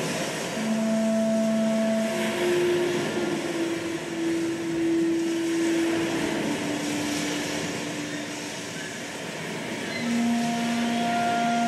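Accompaniment music for a dance: slow, long held low notes, one after another, over a steady rushing, wind-like noise. A new pair of notes comes in near the end.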